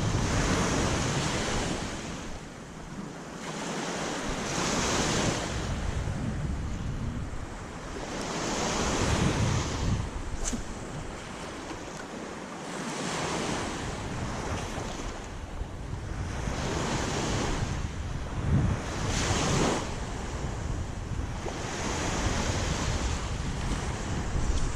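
Waves washing up on a beach, the surf swelling and fading every few seconds, with wind buffeting the microphone.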